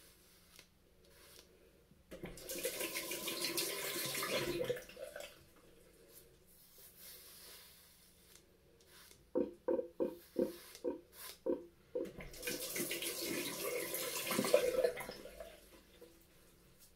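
Bathroom tap running in two stretches, the shaving razor rinsed under it, with a quick run of about eight short knocks between the rinses.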